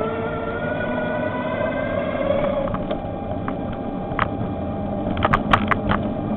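Electric bicycle's motor whining, its pitch rising slightly as the bike speeds up, then fading after about two and a half seconds, over a steady low rumble of riding noise. A few sharp clicks or rattles come about five seconds in.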